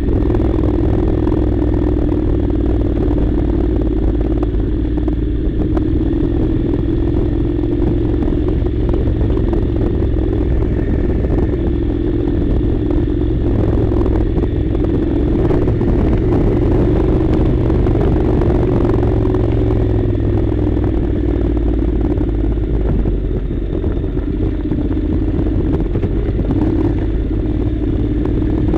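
Honda NC700's 670 cc parallel-twin engine running at a steady pace while being ridden, easing off briefly late on.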